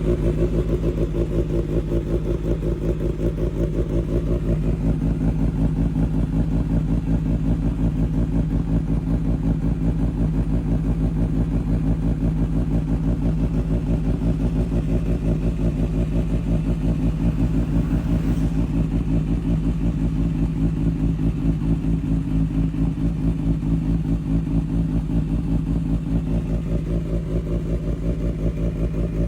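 Motorcycle engine idling steadily with a deep, even, rapid pulse and no revving, the low idle the title likens to a snoring bull ("banteng ngorok").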